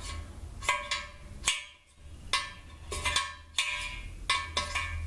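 A metal pin pushed in and out of a freshly installed servo bore sleeve in a 5R55S transmission case, clicking against the sleeve about eight times at uneven intervals, each tap with a short metallic ring, as the sleeve's fit is checked. A low steady hum runs underneath.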